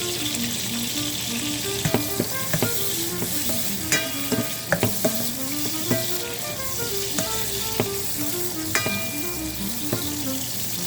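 Soya chunks sizzling in hot oil in a pan while being stirred, with a utensil knocking against the pan several times.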